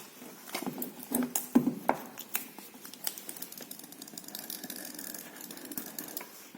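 Infinix Hot 8 retail box being unsealed and opened by hand: a quick run of clicks and scrapes in the first two seconds, then quieter rubbing and sliding as the lid comes off.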